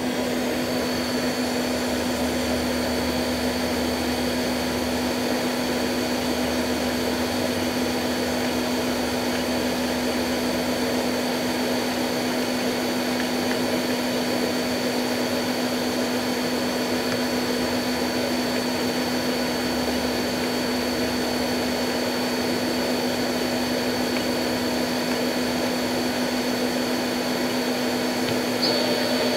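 Daewoo DMV-500 CNC vertical machining center running with a steady mechanical hum and a thin high whine, with a small tick near the end.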